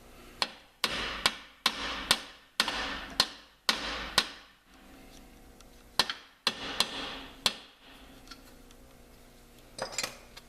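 Hammer blows on metal while fitting a Jeep's rear shock: about nine quick strikes, then a pause, then four more, each ringing out briefly after the hit.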